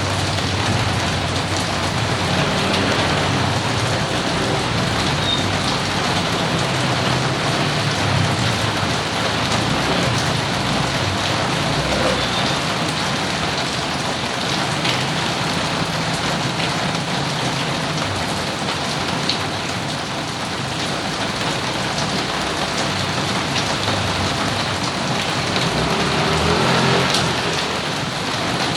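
Steady rain falling and pattering on surfaces, a dense even hiss.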